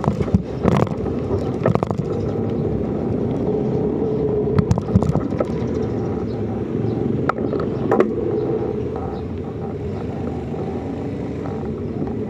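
Steady rumble of a knobby tyre rolling over a concrete road, with short knocks and rattles as it goes over cracks and bumps: a few within the first two seconds, and more around five and eight seconds in.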